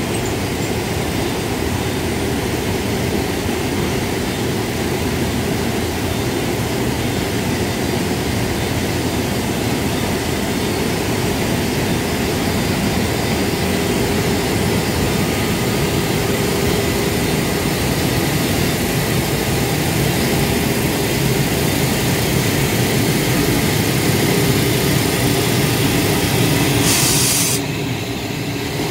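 JR Freight EF510 electric locomotive moving slowly past at close range: a steady electric hum with the rumble of its wheels on the rails. A short hiss sounds near the end.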